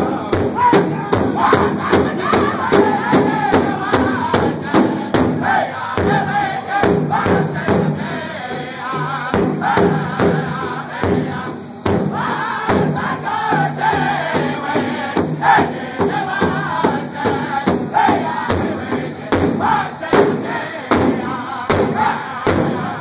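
Northern-style powwow drum group: several men striking a large shared hide drum with sticks in a steady beat while singing a contest song together.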